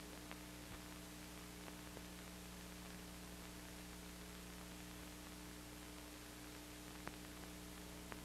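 Faint steady electrical hum and hiss from an old film soundtrack, with a few soft clicks. No other sound is heard.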